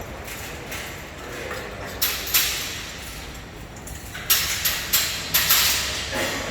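Sharp knocks and clanks of scaffolding parts being handled during dismantling: two about two seconds in, then a quicker run of about five a little past halfway.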